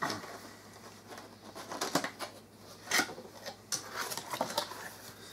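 Cardboard box being opened by hand: flaps pried up and folded back with scattered scrapes, taps and snaps of cardboard, the loudest about three seconds in.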